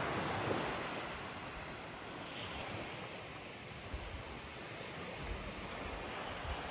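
Steady wash of sea surf and wind, with gusts buffeting the microphone in low rumbles about four and five seconds in.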